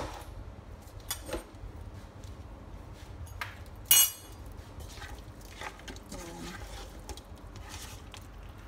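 Kitchen utensils clattering against a pot: a few light knocks, then one sharp ringing metallic clank about four seconds in. Scattered soft clicks and scrapes follow as a spatula works the cooked lamb in the pressure cooker's inner pot, over a low steady hum.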